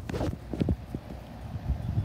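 Footsteps on dry grass and fallen leaves: a string of soft, uneven thumps.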